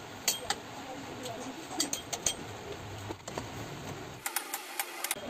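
Scattered light metallic clicks and clinks of a spanner working the bolts of a motorcycle's cylinder head cover as they are tightened, several in quick succession near the end.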